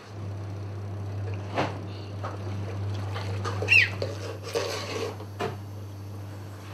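Top-loading washing machine running with a steady low hum. A few sharp knocks sound over it, one a little after the first second and another near the end, with a brief high squeak in the middle.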